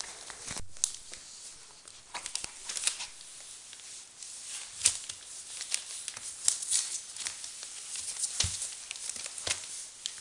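Irregular rustling, crackling and scratching as five-week-old Border Collie puppies scramble and play over newspaper and clothing. Their paws and claws scuffle in short, uneven bursts.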